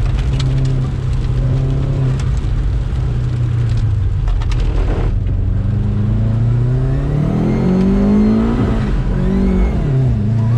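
Boosted Subaru Impreza GC8's flat-four engine running steadily under load, then revving up about halfway through with a rising pitch that drops back briefly near the end and climbs again.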